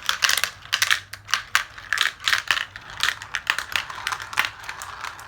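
Marbles clacking and rattling down a marble-run tower: a quick, uneven string of sharp clicks as they hit the track and each other.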